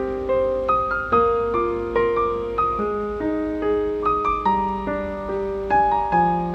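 Background piano music: a gentle melody of single struck notes over held lower notes, several notes a second.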